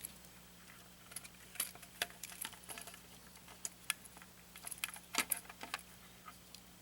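Scattered light clicks and rattles of small plastic parts being handled, with a denser run of clicks about five seconds in.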